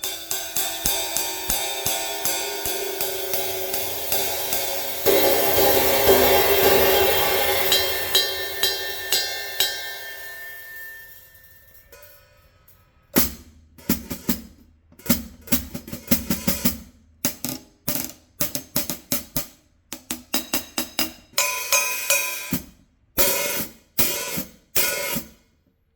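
Cymbal played in quick strokes, swelling to a loud washing crash about five seconds in that rings out and fades by about twelve seconds. Then comes a string of short, separate strikes, each cut off quickly.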